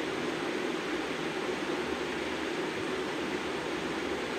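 Green peas sizzling as they fry in hot oil in a steel kadai, a steady sizzle.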